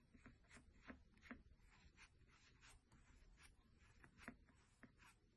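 Near silence with faint, irregular scratchy clicks and rustles: a wooden stick poking fibre stuffing into a small crocheted piece.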